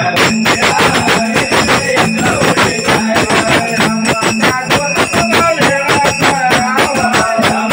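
Nimadi folk devotional music: a mridang (mirdhing) played in fast, dense strokes under a sustained melody.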